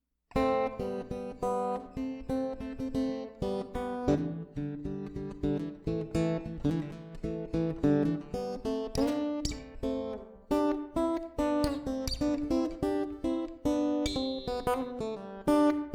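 Acoustic guitar music, a steady run of plucked and strummed notes with a bluesy feel.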